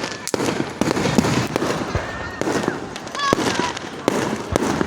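Aerial fireworks going off in a steady volley: sharp bangs about twice a second, with crackle between them.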